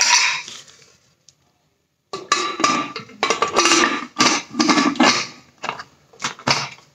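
Aluminium pressure cooker and its whistle weight clinking and knocking as the whistle is worked onto the lid, a dense run of short metal knocks and rattles with a brief silent gap about a second in.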